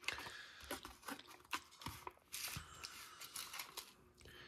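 Crinkling and rustling of a vacuum-packed Pop-Tart wrapper being handled and pulled open, with scattered small clicks.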